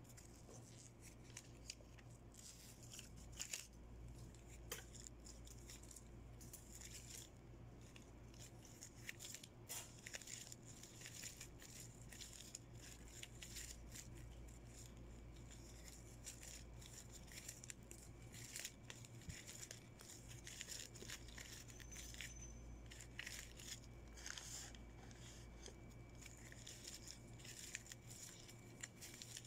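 Faint rustling and crinkling of shiny gift ribbon being pulled and shaped by hand into a pull bow, in many small irregular crackles and ticks.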